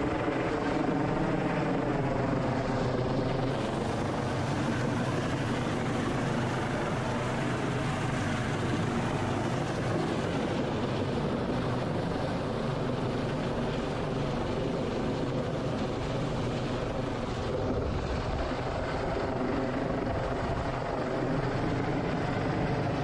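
Coast Guard rescue helicopter hovering close overhead during a basket hoist, its rotor and engine noise steady and loud.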